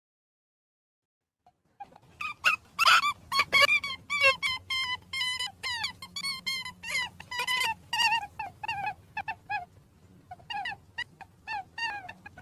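Rabbits squeaking: a rapid run of short, high, wavering squeaks, several a second, beginning after nearly two seconds of silence.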